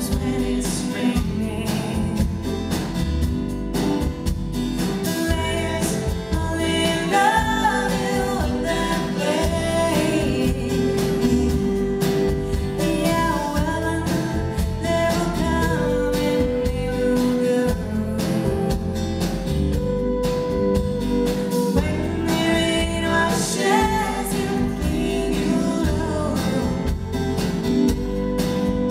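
A live rock band playing, with a woman singing lead over a drum kit and acoustic and electric guitars.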